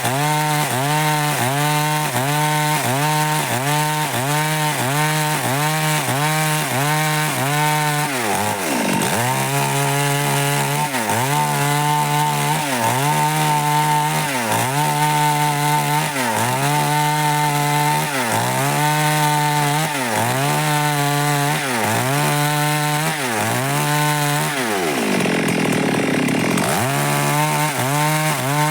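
Stihl MS 382 two-stroke chainsaw cutting dry wood, its engine speed rising and falling in a regular cycle, about one and a half times a second at first and then about once a second. The engine drops much lower twice, about nine seconds in and again near the end.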